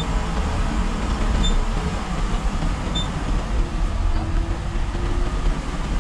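Steady, heavy cabin rumble of a TNSTC bus's diesel engine and road noise, heard from the driver's cab while the bus is under way. Three short high beeps, a second and a half apart, sound in the first half.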